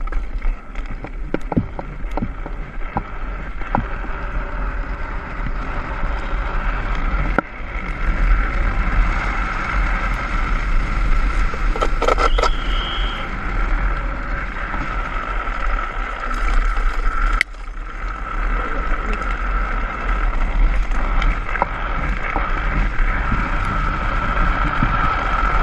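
Wind rushing over an action camera's microphone and tyres rolling on asphalt during a fast, unpowered downhill run, a steady roar with a thin hum running through it. A brief high squeal about twelve seconds in.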